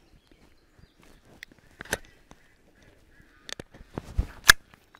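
Metal clicks and clacks of a Walther-made Colt 1911 .22 LR pistol being handled, scattered through, with a low thump and then the loudest sharp clack about four and a half seconds in.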